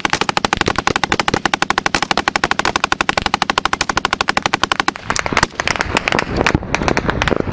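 Automatic gunfire at close range: one long continuous burst of about ten rounds a second, breaking off about five seconds in, followed by scattered single shots and short bursts.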